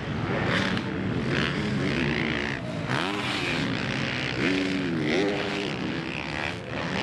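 Motocross bikes racing on a dirt track, their engines revving up and down through the corners. At least two bikes are running close together.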